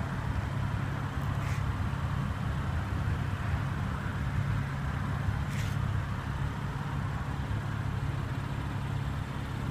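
Steady low rumble of background vehicle noise, with two faint clicks, one about a second and a half in and one past the middle.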